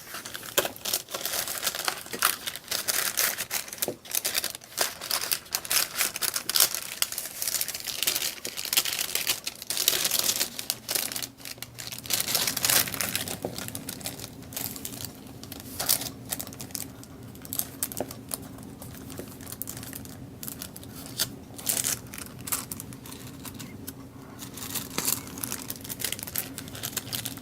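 Cellophane bags crinkling and crackling in irregular bursts as they are handled. A low steady hum joins about halfway through.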